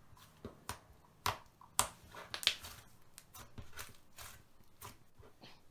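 Red slime full of trapped air bubbles being pressed and squeezed by hand, giving a string of irregular sharp clicks and pops, about a dozen in all.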